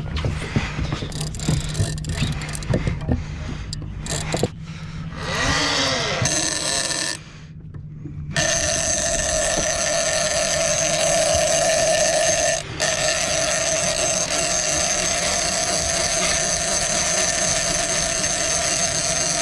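A big-game fishing reel's clicker ratcheting as line goes out to a hooked bluefin tuna. About eight seconds in it becomes a loud, steady buzz. The clicker is the captain's ear on the fish in the dark, telling him what the tuna is doing on the line.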